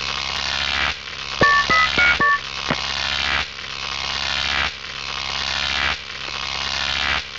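Electronic intro sound effects: a hissing swell that rises and cuts off about every one and a quarter seconds, with a quick run of four two-tone beeps, like a phone keypad being dialled, about a second and a half in.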